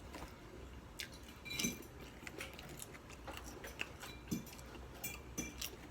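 Chewing potato chips, with a few soft crunches and small clicks scattered through, the loudest a little under two seconds in.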